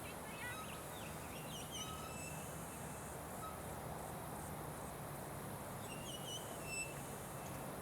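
Birds chirping in short calls now and then, over a steady outdoor background hiss with a low hum underneath.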